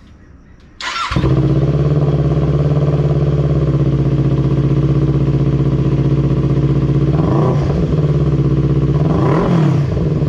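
Kawasaki Ninja 400's parallel-twin engine breathing through a Leo Vince GP Corsa slip-on exhaust: it starts about a second in and idles steadily, then is revved briefly a few times over the last few seconds.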